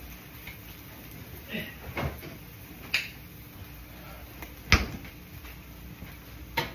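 Refrigerator door opened and shut while items are put away, heard as about five separate knocks and clunks, the loudest a sharp thump about three-quarters of the way through.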